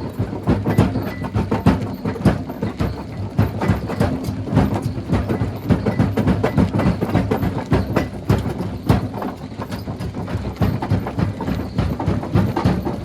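Rock crusher running under load: a steady machine drone with a constant, irregular clatter of knocks and cracks as stones are broken and tumble through it.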